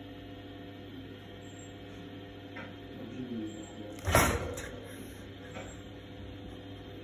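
A cat's sudden swipe at a hand sets off a single sharp knock, the loudest thing here, about four seconds in, with a smaller click just after. Quiet background music with a steady hum runs underneath.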